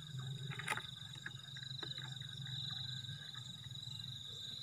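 Night chorus of insects trilling steadily on one high note, with a low steady chorus of frogs beneath. A few light clicks and knocks, the loudest about three-quarters of a second in.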